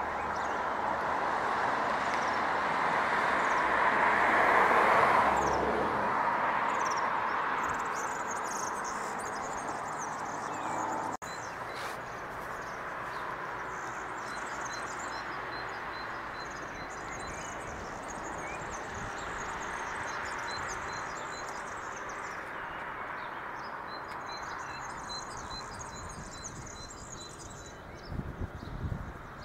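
Diesel-hauled freight train of wood-chip wagons rolling past, its rumble swelling to a peak about five seconds in and then fading. After an abrupt break about eleven seconds in, a steady distant rumble remains with birds chirping.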